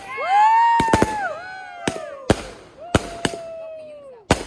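Consumer fireworks going off in a finale: a string of sharp bangs, about seven, mixed with whistling tones that rise, hold and then slide down in pitch, several at once.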